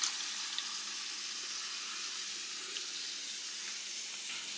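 Half-and-half cream sauce sizzling steadily in a hot pan: an even, light hiss with a few faint ticks.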